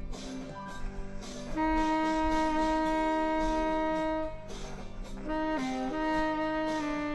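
Selmer Mark VI saxophone playing a melodic phrase: a long held note starting about a second and a half in and lasting nearly three seconds, then a few shorter notes in quick succession before it settles on another held note.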